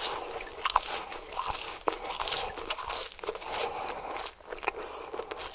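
Close-up mouth sounds of chewing crispy fried food, with many irregular sharp crunches and crackles.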